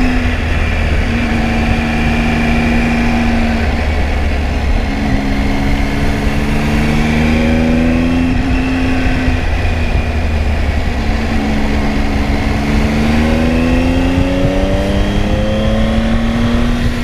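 Triumph Tiger 800's three-cylinder engine running under way on the road, its pitch rising twice as the bike accelerates, about five seconds in and again about eleven seconds in, over a steady low wind rumble on the microphone.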